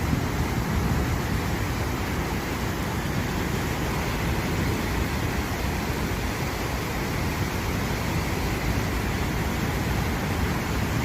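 Fast-flowing floodwater rushing past as a steady, even noise.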